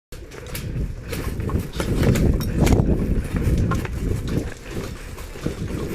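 Muffled thumping footsteps and gear rustle of a player on the move, heard through a body-mounted action camera, with scattered short clicks.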